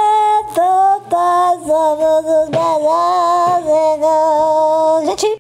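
A woman's voice singing a slow tune in long held notes with short breaks between them, stopping abruptly at the end.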